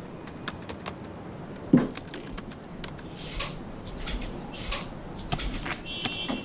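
Light, scattered clicks and taps of small objects being handled, with one louder knock just under two seconds in and a brief high squeak near the end.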